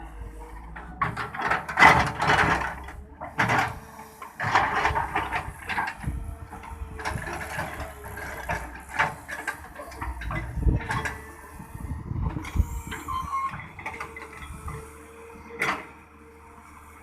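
Samsung SE170 W3 wheeled excavator at work digging mud: its diesel engine runs steadily under irregular surges, clanks and scraping from the working bucket and arm.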